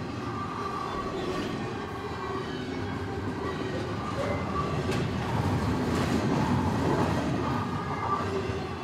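Double-stack intermodal freight train's well cars rolling past: a steady rumble and rattle of steel wheels on rail with a few light clanks, swelling slightly in loudness partway through.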